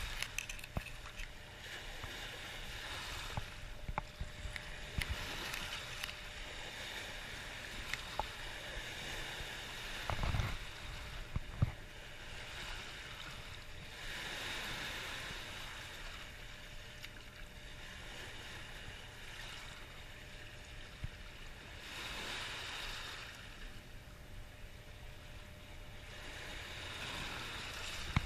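River water rushing and lapping along a rocky shore: a steady hiss that swells every several seconds. Small clicks and a couple of soft knocks come from fishing tackle being handled while a sinker is tied on.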